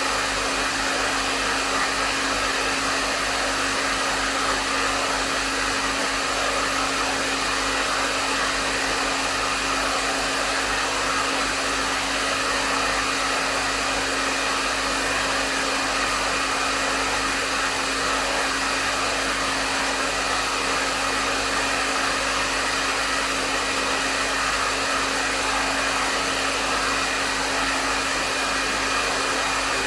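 Hair dryer running steadily: an even rush of blown air with a steady low hum from the motor, unchanging throughout.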